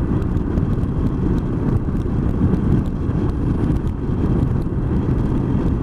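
Motorcycle engine running steadily on the move, with wind noise.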